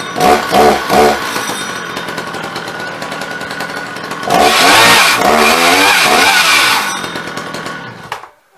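Petrol chainsaw revved three times in quick succession, then cutting into a log. The engine gets louder under load about four seconds in, with the pitch dipping and rising through the cut, then winds down and stops shortly before the end.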